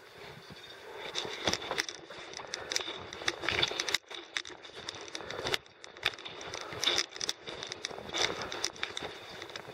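Irregular crunching and crackling of footsteps on a loose rocky trail, several uneven crunches a second.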